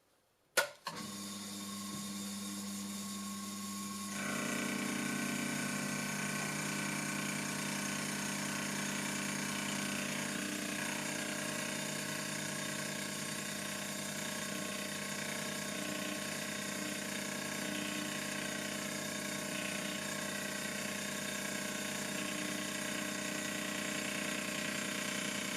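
TAIG milling machine switched on with a click, its spindle motor then running steadily with a hum and a whine. About four seconds in the sound gets louder and fuller as the milling pass on the brass part runs on.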